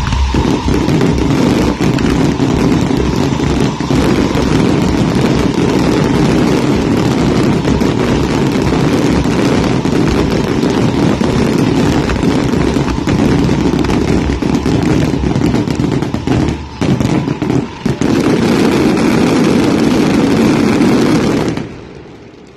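A long barrage of fireworks going off as a dense, continuous crackle, with a few short breaks, stopping abruptly near the end.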